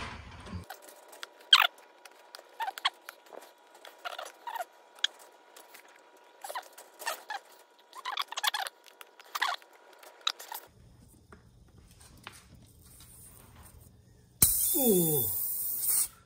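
Pliers working a long nail out of a mountain bike's knobby tyre: a run of short squeaks and clicks, then near the end a loud hiss about a second and a half long with a falling squeal in it.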